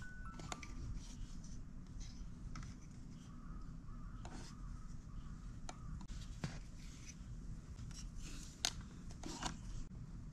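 Faint handling of a Suzuki Every's fuel lid and its clear window sheet: scattered light clicks and rubbing as the pieces are turned over and fitted together.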